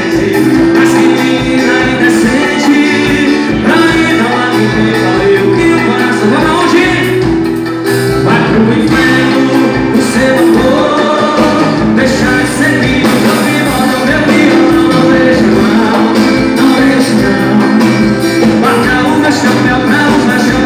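Live band music: a male singer singing over acoustic guitar, electric guitar and drums.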